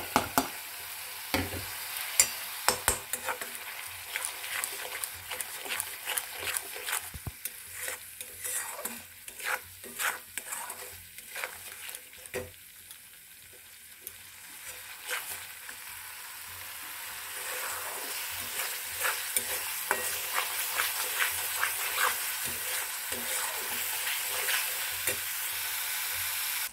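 Masala paste with ground spices frying in oil in a kadai, sizzling, while a steel spatula scrapes and taps the pan as it is stirred. The sizzle grows louder and steadier from about halfway through.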